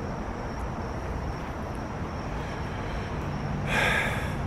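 Steady low outdoor rumble, like distant traffic, with a short hiss about four seconds in.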